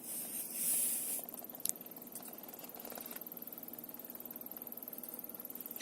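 Kia Ceed JD SW heater blower motor running with a fast, even, rhythmic squeak, a fault in the fan motor. A short hiss comes in the first second and a sharp click at about two seconds in.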